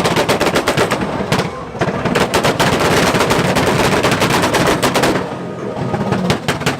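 Volkswagen's exhaust banging and crackling on a two-step launch limiter: a rapid string of sharp pops, many a second, thinning out about five seconds in.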